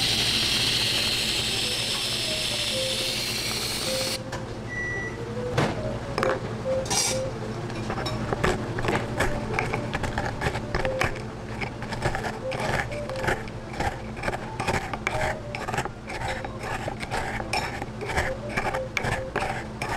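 A whipped-cream dispenser hissing as it tops a drink, cutting off about four seconds in. Then a wooden pestle knocks and grinds Oreo cookies in a wooden mortar, several quick knocks a second.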